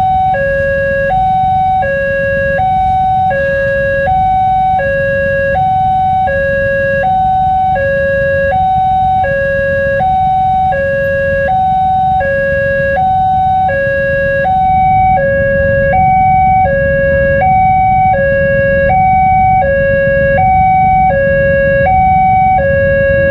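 Railway level-crossing warning alarm sounding its two-tone electronic signal, a higher and a lower tone alternating evenly, each held about three-quarters of a second, while the barrier is down for an approaching commuter train. A steady low rumble runs underneath.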